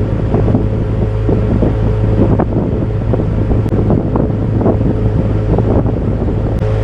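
Johnson 40 hp VRO outboard motor on a pontoon boat running steadily, with wind buffeting the microphone.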